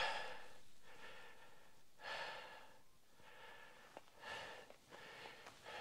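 A man's breathing close to the microphone, three breaths about two seconds apart, as he catches his breath after a long hike in the heat.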